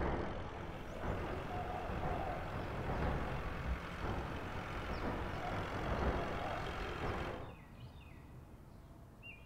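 A truck's engine running as it drives slowly up, with steady outdoor traffic noise. About seven and a half seconds in, this drops to a quiet background with a few faint bird chirps near the end.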